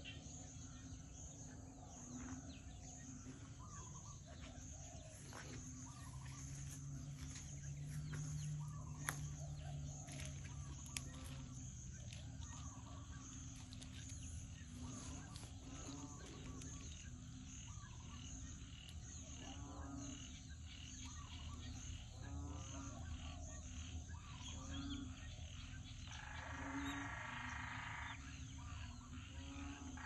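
Countryside ambience: scattered short animal calls, birds among them, over a steady low background noise. There are two sharp clicks near the middle, and a louder pitched call lasting about two seconds near the end.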